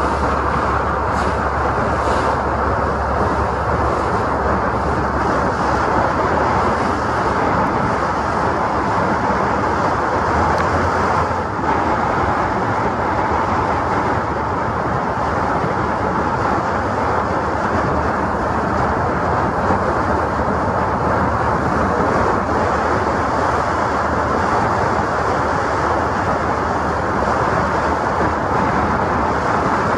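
Bayliner Capri 2052 cuddy-cabin motorboat running at speed: a loud, steady rush of wind, water and engine drone, with wind on the deck-mounted microphone.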